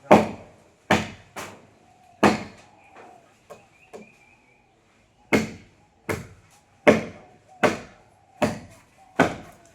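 Repeated chopping blows of a blade into a tree trunk, a sharp woody chop about every three-quarters of a second, with a few lighter knocks and a brief pause midway.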